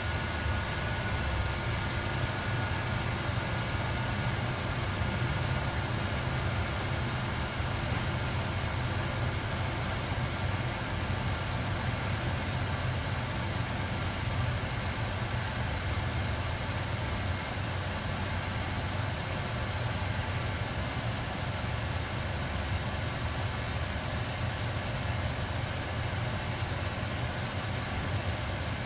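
2000 Ford F-150's 4.2-litre V6 idling steadily, its PCV vacuum hose leaks repaired, now running much better and smoother.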